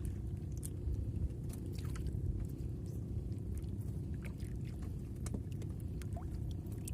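Steady low rumble of water and wind around a small fishing boat at sea, with scattered light knocks and splashes.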